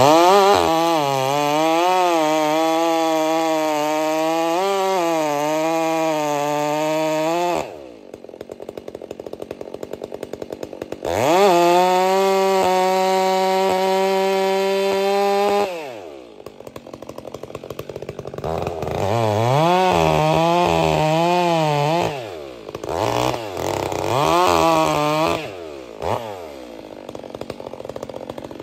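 Stihl 362 C-M two-stroke chainsaw with an aftermarket Bark Box muffler, cutting cherry wood. It runs at full throttle with the pitch wavering under load for several seconds, drops back to idle, revs high and steady again for about five seconds, idles, then gives two shorter bursts of throttle before settling back to idle near the end.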